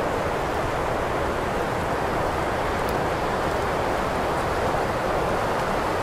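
Wind blowing steadily, an even rushing noise that holds at one level without gusts or lulls.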